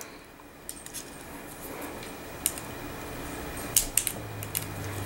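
Flathead screwdriver tip clicking against the steel bolt of a Westernfield .22 bolt-action rifle while working at its pressure pin: a few small metallic clicks, several close together near the end.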